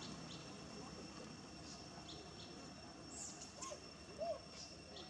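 Faint outdoor ambience: a steady high tone under scattered short high chirps, with a cluster of chirps about three seconds in and a brief rising-and-falling squeak a little after four seconds, the loudest sound.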